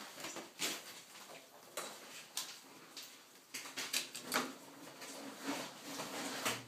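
A ferret rummaging among hard plastic balls and toys in a plastic bin of water: irregular light knocks and clatter of plastic on plastic.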